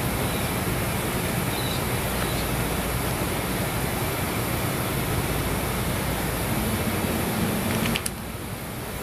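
Steady, loud background noise with a low hum underneath, dropping suddenly in level near the end.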